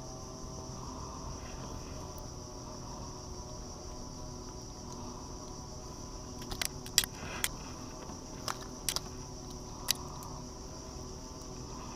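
Steady high-pitched chorus of insects, with half a dozen sharp clicks from about halfway through as a caught giant river prawn is handled and unhooked.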